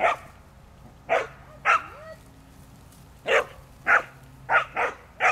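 A young herding dog barking at sheep: about eight short, sharp barks, some single and some in quick pairs, with pauses between.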